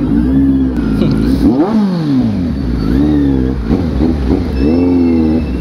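Kawasaki Z900 SE's inline-four engine revved in a series of throttle blips through an aftermarket Orion dual-pipe exhaust with the breadbox deleted. The pitch rises and falls several times, the biggest sweep about a second and a half in, then a longer held rev near the end.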